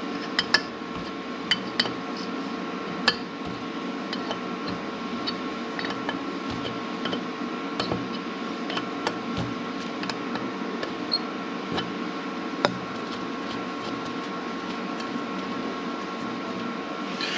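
A steel combination wrench clicking and clinking on a nut welded to a broken exhaust stud as the stud is backed out of an aluminum LS cylinder head. The light metallic clicks come thick in the first few seconds and sparser later, over a steady hum.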